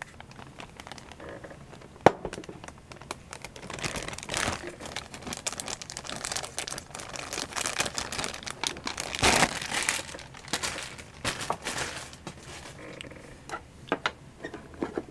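Thin clear plastic bag crinkling and rustling in the hands as it is opened and a small plastic figure part is taken out, with a sharp click about two seconds in.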